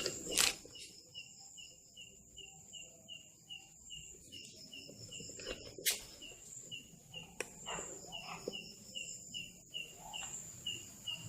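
Cricket chirping steadily, about three chirps a second, with a thin high insect trill that comes and goes. A few sharp clicks sound over it, the loudest about half a second in and again about six seconds in.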